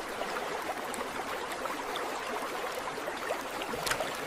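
AI-generated (Veo 3) sound of running rainwater: a steady rush and trickle with many small drips and plinks, as water pours into a drain hole. A sharper splash comes near the end.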